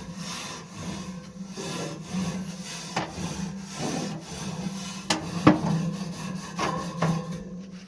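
Gas barbecue cooking grate being scraped clean: rough back-and-forth scraping strokes at an even pace, with one sharp knock about five and a half seconds in.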